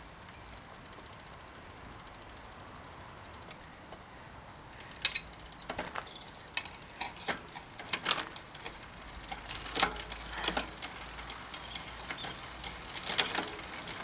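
Bicycle rear freehub ratcheting as the wheel spins freely in the stand: a rapid, even clicking, about fifteen ticks a second, that stops after a few seconds. Then the Shimano Deore XT chain runs through the drivetrain with scattered sharp clicks and clunks of gear shifts as the front derailleur is set up.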